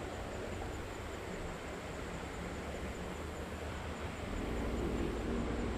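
Steady rush of flowing creek water. About four seconds in, a low engine-like drone comes in and grows a little louder.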